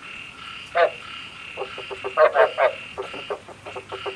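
Frogs croaking in short, rapid pulsed calls: one call about a second in and a quick run of several a little past the middle, over a steady faint high buzz. This is the frog-call recording used as a lure for night frog trapping.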